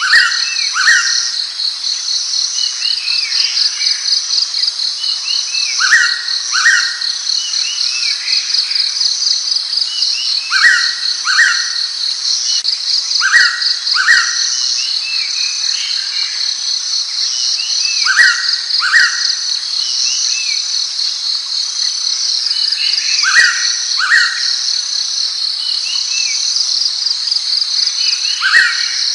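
Blue-winged pitta calling its two-note whistle, repeated about every three to five seconds. A steady, fast-pulsing insect chirr runs underneath.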